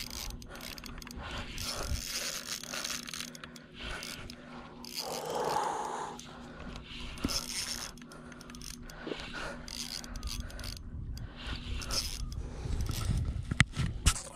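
Shimano Stradic 3000 spinning reel being cranked, its gears and rotor making a steady run of small mechanical scrapes and clicks as line is wound in. A sharp click comes near the end.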